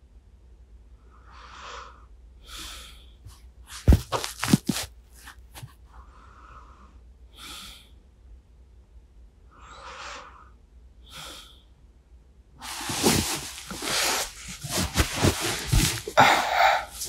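Sleepy breathing close to a binaural microphone: soft breaths a few seconds apart, with a couple of sharp taps about four seconds in. Near the end, loud, dense rustling with many clicks, like bedding shifting against the microphone as the sleeper moves.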